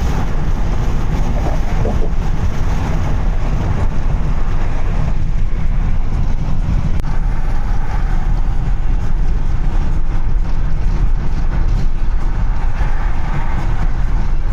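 Steady road noise of a moving car heard from inside the cabin: a continuous low rumble of tyres and engine with a wash of wind noise over it.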